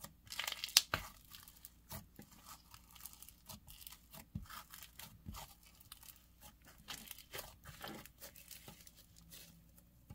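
Green snow fizz slime pressed, kneaded and balled up by hand, giving a run of short crunches and crackles, loudest about a second in. The crunch comes from the snow fizz texture, here non-tacky.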